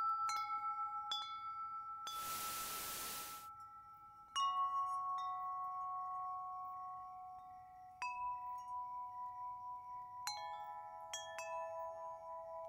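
Chimes struck a few at a time, each note ringing on long and slowly fading, with new clusters about four, eight and ten seconds in. A short burst of static hiss cuts across about two seconds in.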